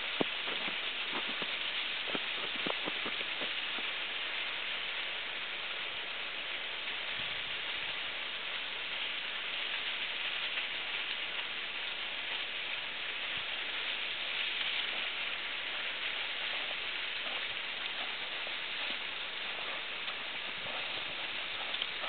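Steady rushing hiss of Arethusa Falls' water running down under its winter ice cover, with a few faint clicks in the first three seconds.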